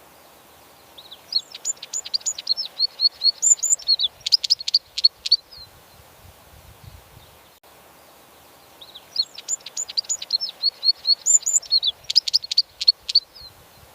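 White wagtail singing: two near-identical bursts of rapid, high twittering chirps, each about four seconds long, with a pause of about three seconds between them.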